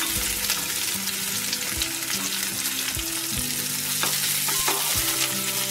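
Ridge gourd peel, onion and green chillies sizzling in hot oil in an aluminium kadai. A wooden spatula stirs them, scraping and knocking against the pan now and then.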